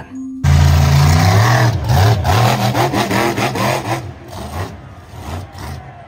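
Monster truck engine revving, starting suddenly about half a second in with a deep, wavering pitch, and easing off over the last couple of seconds.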